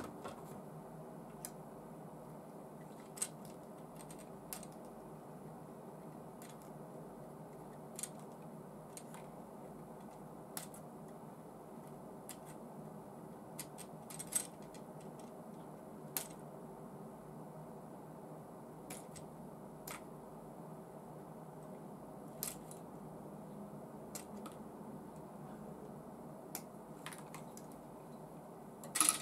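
Scattered short, sharp clicks and snips of a plastic model kit being worked on, its parts handled on their plastic sprues and cut free, about a dozen spread irregularly, over a steady faint hum.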